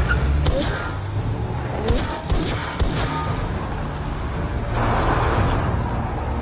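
Action-film soundtrack: a dense, low music bed with a handful of sharp cracks or bangs in the first three seconds, then a rushing whoosh-like swell about five seconds in.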